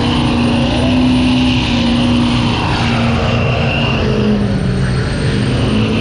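Car engine held at high revs during a tyre-smoking burnout, its pitch wavering up and down as the revs rise and fall.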